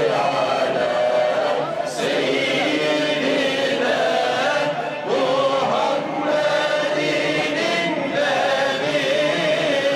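A group of men's voices chanting together in chorus, a steady devotional chant that does not break into speech.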